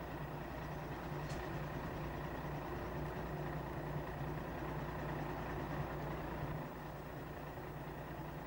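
Milk tanker's engine running steadily to drive the milk pump while milk is metered into the tank. The low hum eases slightly about two seconds before the end.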